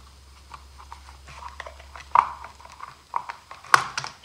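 Plastic clicks and knocks as the knob-held air filter cover is worked loose and lifted off a RedMax edger engine, with a louder snap about two seconds in and a few sharp knocks near the end.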